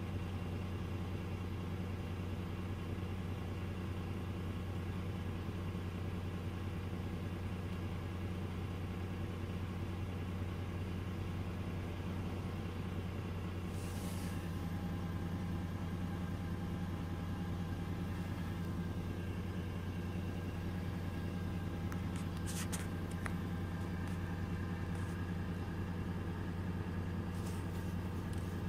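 Mercedes-Benz OM 936 six-cylinder turbo diesel of a Citaro C2 LE city bus idling steadily with the bus at a standstill, a rough, rattly idle. About halfway through a higher steady whine joins in, with a short hiss, and a few brief clicks follow later.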